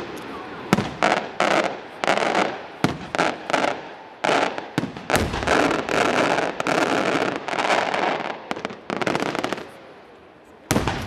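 Aerial firework shells bursting in rapid, irregular succession, sharp bangs mixed with crackling, dropping off briefly near the end before one more loud bang.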